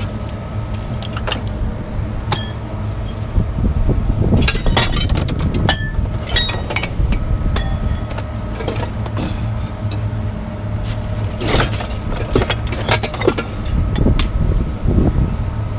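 Pieces of scrap metal clanking and clattering as they are thrown down, several sharp impacts in a row, over a steady low engine hum.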